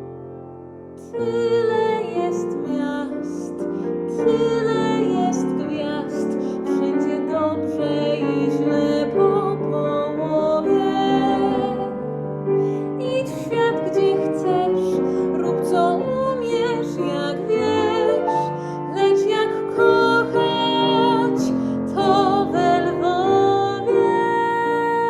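Classical-style music led by piano, with a melody line above it that wavers with vibrato. It swells in loudly about a second in.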